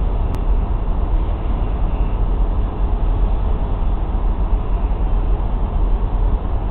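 Two electric trains, a MÁV V43 locomotive and a Stadler FLIRT railcar, rolling slowly into the station side by side: a steady low rumble with hiss, no horn or distinct wheel clicks.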